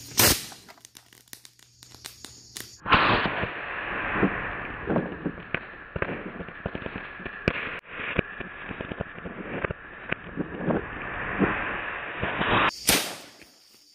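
Firework rockets burning: a long rushing hiss thick with crackles and pops, with a sharp crack near the start and another near the end.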